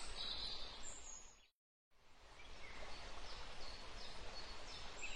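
Countryside ambience sound effect: a steady outdoor hiss with faint birds chirping. It fades out about a second and a half in, drops to brief dead silence, then fades back in with a few more faint chirps.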